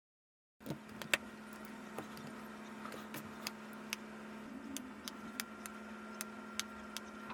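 A small machine running with a steady hum, starting about half a second in, with scattered sharp ticks and clicks over it; a higher whine joins about five seconds in.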